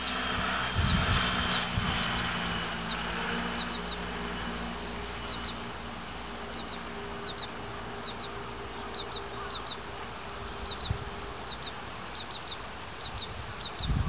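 Oriental greenfinch fledgling begging calls: short, high, falling notes given singly or in quick twos and threes, over and over. Light wind noise buffets the microphone.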